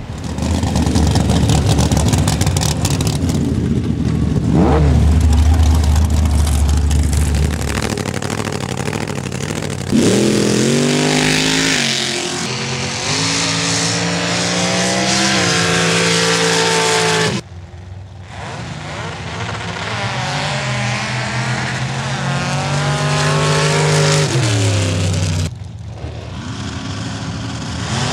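Off-road vehicle engines revving and running, their pitch climbing and falling. The sound changes abruptly a few times, like cuts between shots.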